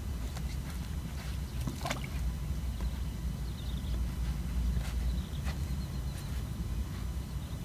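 Wind rumbling on the microphone, with scattered light clicks and knocks from fishing rods and reels being handled on a rod rack.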